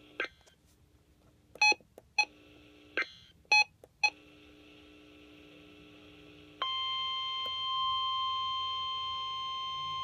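NOAA Weather Radio receiver sounding an alert: a handful of short electronic beeps over the first four seconds, then about six and a half seconds in the steady 1050 Hz warning alarm tone starts and holds, the signal that a warning (here a winter storm warning) is being issued.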